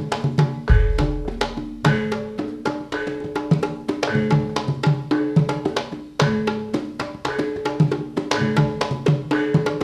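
Javanese gamelan-style dance music: rapid drum and wood-block-like percussion strokes over struck pitched notes, with a deep low boom about a second in.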